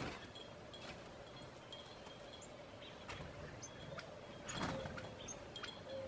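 Wind chimes tinkling now and then in a light breeze, with a few faint, short bird chirps among them.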